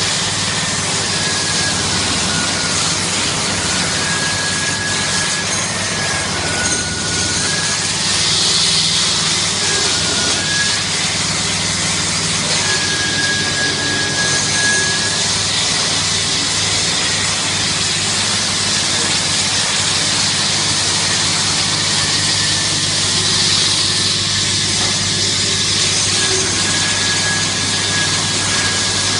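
Christ C100 rollover car wash running: the rotating side brushes and water spray working over a car, making a steady rushing noise over a low motor hum. A faint high whistling tone comes and goes every few seconds.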